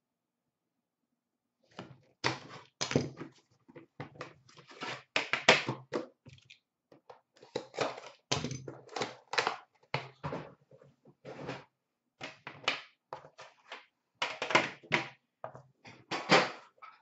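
Cardboard trading-card boxes being handled and opened: a busy run of thunks, scrapes and rustles starting about two seconds in.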